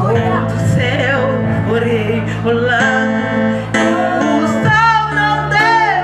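A woman singing a Portuguese worship song through a microphone and PA, over amplified instrumental accompaniment with held low notes that change every second or two.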